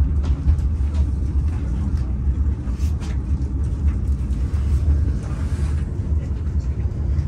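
Steady low rumble of an ICE train's running gear as it pulls out at low speed, heard from inside the carriage, with light scattered clicks and rattles.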